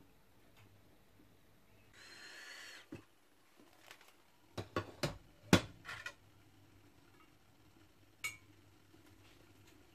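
Clinks and knocks of cookware around a steamer pot with a glass lid, a cluster of sharp hits about halfway through and one more near the end, after a short hiss about two seconds in. A faint steady hum runs underneath.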